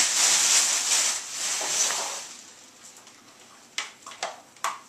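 Clear plastic packaging crinkling as it is handled, fading out about two seconds in. Near the end come a few short sharp plastic clicks and knocks as a wand is fitted to a Dyson DC40 upright vacuum cleaner.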